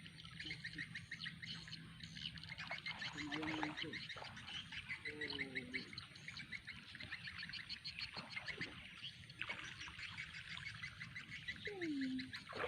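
Chorus of frogs calling: many fast pulsed trills overlapping, with a few short, lower croaks that drop in pitch.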